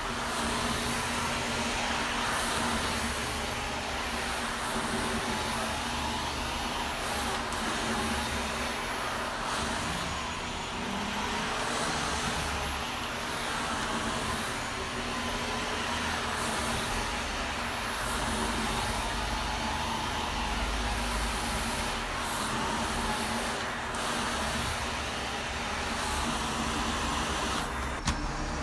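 Vacuum cleaner running steadily, a continuous whooshing motor hum with a short click near the end.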